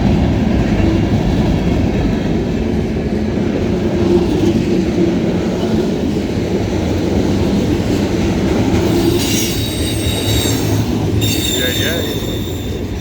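Freight cars of a passing freight train rolling by, a steady heavy rumble of wheels on rail, with high-pitched wheel squeal breaking in about two-thirds of the way through.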